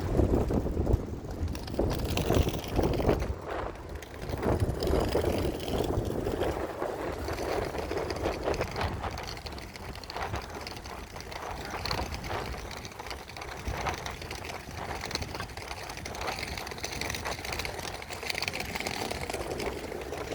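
Downtown street ambience recorded on a phone while walking: a low traffic rumble, heaviest in the first few seconds, under a steady noisy background.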